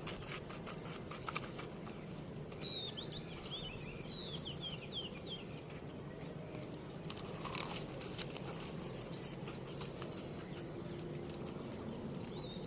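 A small bird chirping a quick run of short, falling notes from about two and a half to five and a half seconds in, and again right at the end. Over this come faint scattered crunching clicks of chewing a crisp fried rice-flour snack (mont lay pwe).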